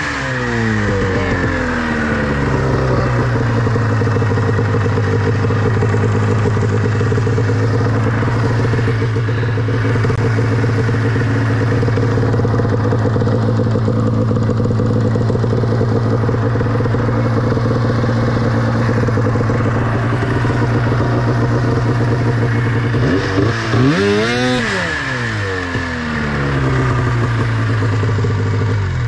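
Snowmobile engine running at a steady speed while the sled is buried in deep snow, with a brief blip of the throttle, up and back down, near the end.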